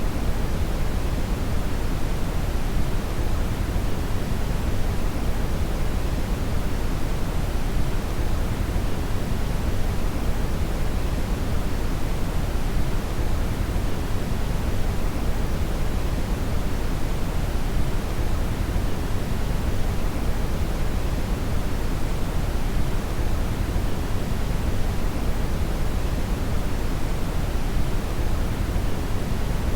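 Brown (red) noise: a steady, deep rushing hiss with its energy weighted toward the low end, unchanging throughout.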